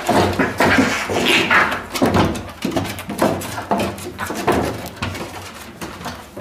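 Two cats fighting: cries and scuffling, with repeated knocks and thumps as they tumble against the wooden deck boards.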